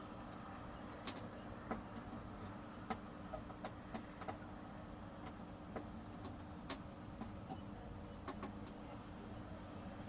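Scattered light clicks and taps, irregularly spaced, from hand-tightening the screws of a monitor stand, over a steady low hum.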